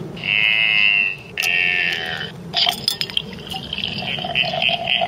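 A drink poured from a glass bottle into a pint glass: two strong gushes in the first two seconds, then a more uneven pour as the glass fills.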